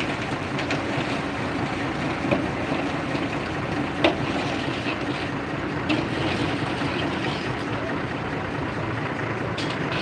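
Transit concrete mixer truck running steadily, its drum turning as it discharges concrete down the chute into a crane-hung concrete bucket. A few short sharp knocks, the loudest about four seconds in.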